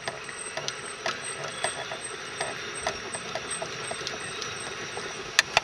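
Hand-cranked winch reeling in a lure line, its mechanism clicking irregularly several times a second, with two sharper clicks near the end.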